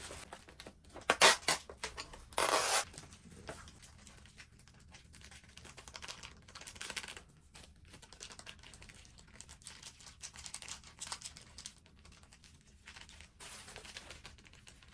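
Plastic food packaging being handled and torn open: crinkling and rustling with many small crackles, and two louder rips about one and two and a half seconds in.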